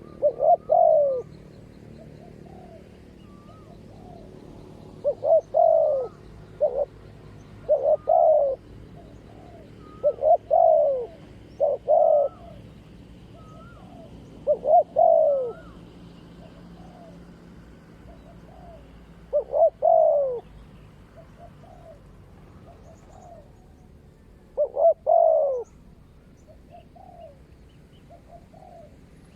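Spotted doves cooing: repeated phrases of falling coos every few seconds, with fainter higher notes between them. This is a decoy male and a wild male answering each other in a territorial calling contest.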